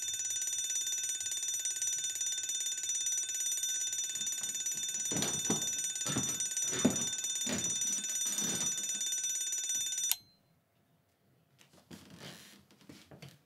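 A bell ringing continuously, a steady bright ring that cuts off suddenly about ten seconds in. Several low thuds fall under the ring in its last few seconds, and a few soft knocks and rustles follow once it stops.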